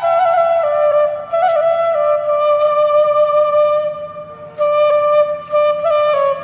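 Background music: a flute playing a slow melody of long held notes, dropping away briefly a little past the middle.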